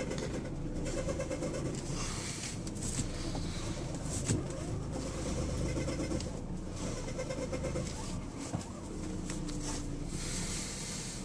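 2003 Lexus GS300's straight-six engine running, with a noise that comes and goes every second or two and sounds like belt squeal but is not the belt; the tensioner pulley bearing has already been replaced.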